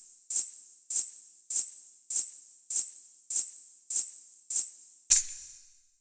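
Payal anklet bells jingling in an even rhythm, about one shake every 0.6 seconds, nine in all. The last, about five seconds in, is heavier and has a low thump under it, and then the jingling stops.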